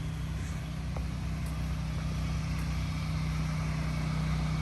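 Pressure washer's gas engine running steadily, a low even drone that grows slightly louder toward the end.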